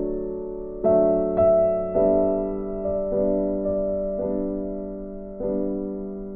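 Background music: a soft piano playing slow, sustained chords, each struck and left to fade.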